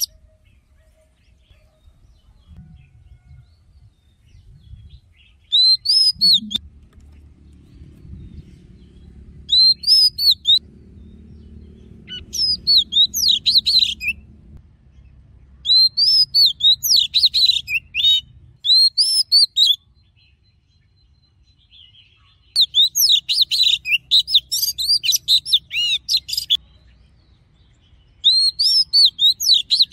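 Male oriental magpie-robin singing: loud phrases of rapid, varied, high whistled notes lasting one to four seconds each, with pauses of a few seconds between them.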